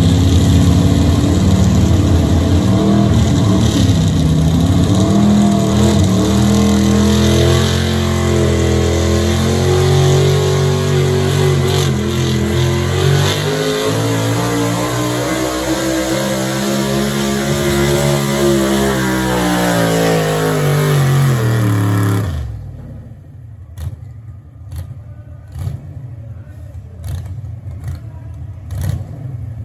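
A super stock gas pulling truck's engine running loud at full throttle as it drags a weight-transfer sled. The pitch wavers, then rises and falls in a long arc, and the engine shuts off sharply about three-quarters of the way through. After that there is only quieter background noise with scattered knocks.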